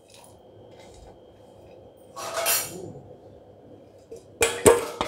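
A stainless-steel plate set over a steel cooking pot as a lid: a short scraping rustle about two seconds in, then a few sharp metal clanks near the end as the plate lands on the rim.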